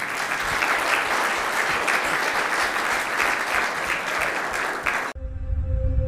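Audience applauding, a dense steady clapping of many hands, which cuts off suddenly about five seconds in. Ambient music with a low drone and a held tone takes over near the end.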